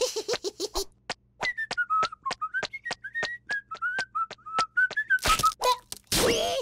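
A cartoon chick whistles a meandering tune over quick, evenly spaced footstep taps on wooden bridge planks, about five a second. Near the end comes a loud noisy burst as he topples.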